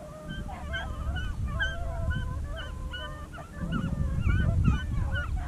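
A pack of beagles baying in chorus, several voices overlapping, as they run a rabbit on its scent. A low rumble joins from about halfway in.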